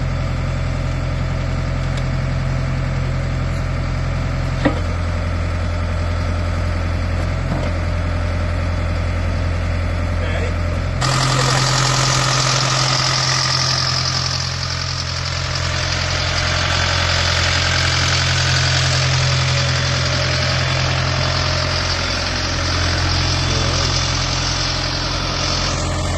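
Diesel engine of a BOTEC-Scheitza RDBS drilling rig running steadily. About eleven seconds in, the sound changes abruptly to a louder run with a strong hiss, which holds until near the end.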